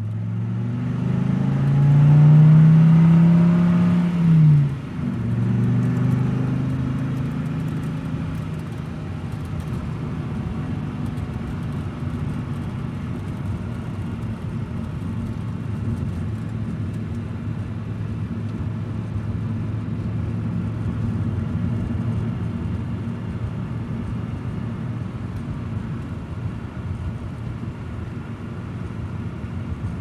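Car engine accelerating, its pitch rising over the first few seconds and dropping sharply at a gear change about four seconds in, then running in a steady drone as the car cruises.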